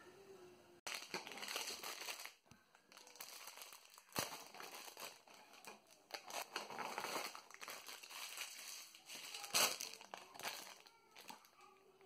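Clear plastic Haribo sweet packets and a thin plastic tray crinkling as hands handle them, in irregular bursts, with one sharper, louder crackle about nine and a half seconds in.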